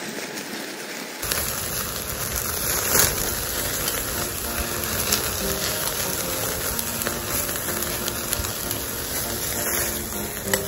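Pork belly sizzling and crackling over a charcoal fire on a grill grate, with flames flaring up from the fat, under background music.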